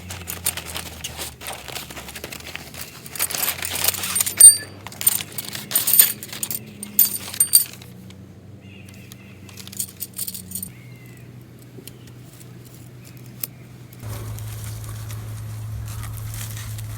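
Small metal objects clinking and jangling for the first several seconds, then a few scattered clicks, over a low steady hum that grows louder near the end.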